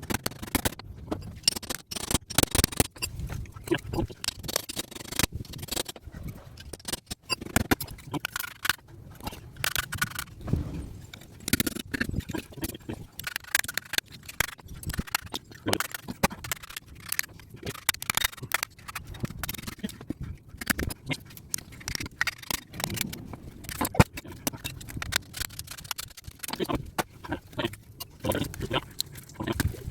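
Hand tools working on metal, with irregular scraping and clicking strokes throughout, as copper is stripped from small transformers.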